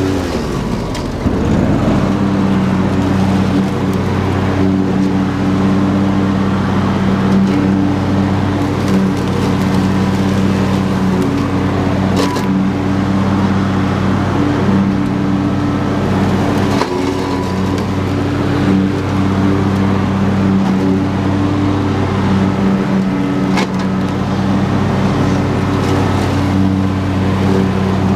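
Husqvarna YTH22V46 lawn tractor's 22 hp V-twin engine running steadily at mowing speed while the mower deck cuts through tall grass and brush. The pitch dips briefly about a second in, and a few sharp ticks come through later.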